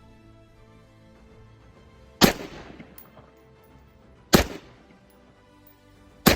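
Three single rifle shots from a DPMS Panther A-15 AR-15-pattern rifle, about two seconds apart, each followed by a short echo tail.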